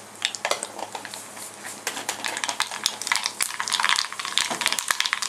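Mustard seeds sizzling in hot coconut oil, the crackle thickening into rapid popping from about two seconds in as the seeds begin to splutter. This is the popping that marks the tempering stage as done, before the shallots go in.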